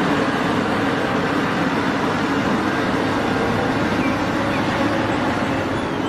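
Large Cat 6015B hydraulic mining excavator running steadily: a dense, even diesel engine drone with a low hum underneath.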